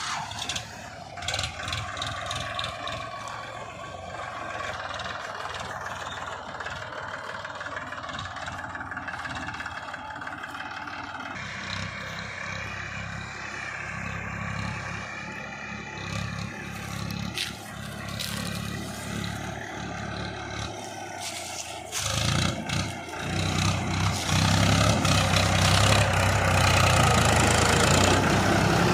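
Diesel engines of a JCB 3DX backhoe loader and a tractor running under load while mud is dug and loaded, with clattering and scraping. The engine noise grows louder about three quarters of the way through.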